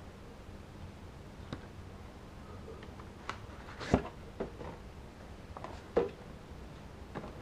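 Packaging being handled: a cardboard box and a translucent plastic case tapping and knocking as the case comes out of the box and the pieces are laid on a wooden table. There are a handful of scattered knocks, the loudest about four and six seconds in.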